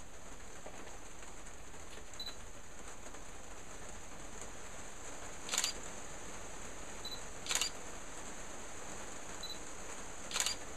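Steady background hiss with three short, sharp clicks in the second half, about two and three seconds apart.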